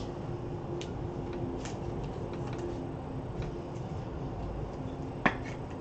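Low steady room hum with a faint steady tone. A few light clicks come from trading cards being handled, with one sharper click about five seconds in.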